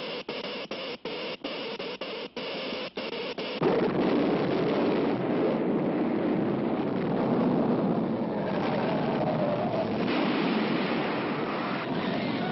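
Cartoon sound effects: an electric crackle of sparks that stutters on and off rapidly. Then, a little under four seconds in, it gives way abruptly to a loud, continuous rumble of an earthquake shaking the city.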